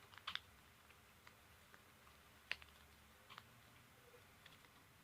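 A few faint, sharp plastic clicks and taps of an action figure and its shield being handled and fitted together, the loudest about two and a half seconds in; otherwise near silence.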